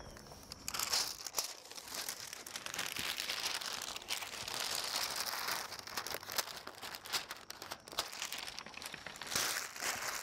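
White plastic release film crinkling and tearing as it is peeled off the adhesive back of a flexible thin-film solar laminate. The crackling is continuous, with louder bursts about a second in and again near the end.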